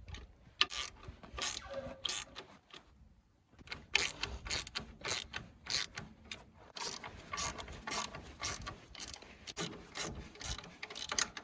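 Ratchet wrench clicking in runs of quick strokes while turning the engine's mounting nuts, with a short pause about three seconds in.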